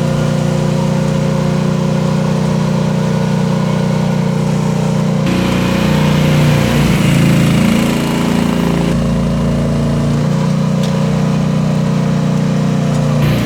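Rippa R10 mini excavator engine running steadily. For a few seconds in the middle the engine note shifts and the sound gets louder, as the machine works with a load of about 350 lb.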